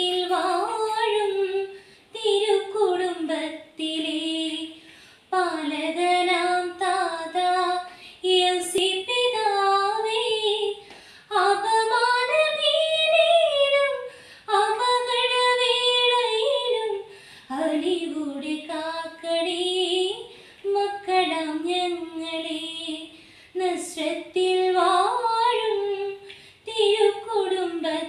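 A girl singing a Malayalam Christian devotional song solo and unaccompanied, in short melodic phrases with brief breaths between them.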